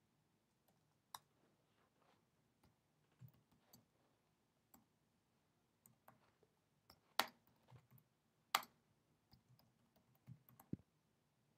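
Sparse, irregular computer keyboard key clicks from slow typing, with two louder key strikes about seven seconds in and a second and a half later.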